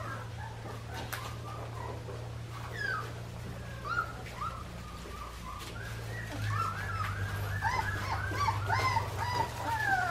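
Four-week-old Australian Shepherd puppies whining and squeaking in short high calls, which come thicker and faster about two-thirds of the way in, over a steady low hum.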